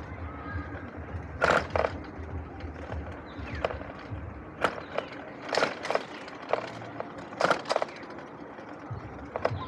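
E-bike rolling on a concrete path: a steady low rumble from the tyres, broken by irregular sharp rattles and knocks from the bike's frame and basket as it bumps over the path's joints.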